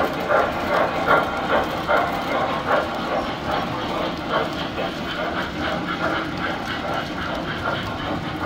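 Tinplate toy train's metal cars rolling over three-rail track with a steady rumble and regular clicking of wheels over the rail joints, the clicks strongest in the first half as the cars pass.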